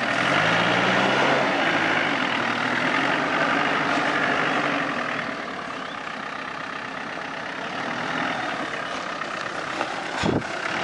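Land Rover Defender's engine running at low revs as it crawls over rock, the revs rising briefly at the start and then holding steady and quieter. One sharp knock comes near the end.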